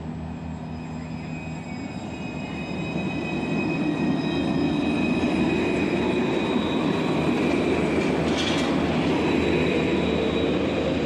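Alstom Citadis 302 low-floor tram pulling away from the platform and passing close, getting louder over the first few seconds as it gathers speed. A rumble of wheels on rail runs under a steady high whine, and a lower whine rises in pitch during the second half.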